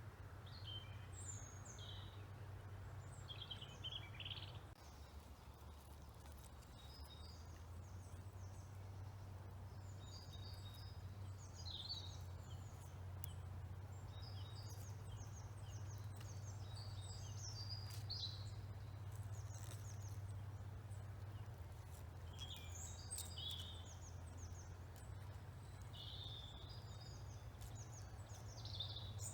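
Woodland birds singing and calling: many short chirps and trills, some overlapping, over a low steady rumble.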